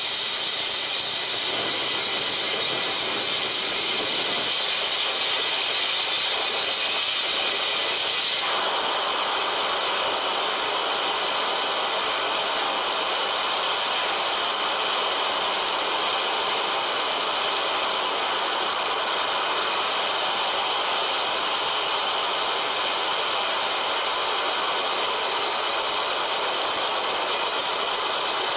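Harsh electronic noise (Japanoise) played live on tabletop electronics: a loud, unbroken wall of hissing, grinding noise, heaviest in the upper-middle range. About eight seconds in, the texture shifts, the highest band easing back while the middle fills in.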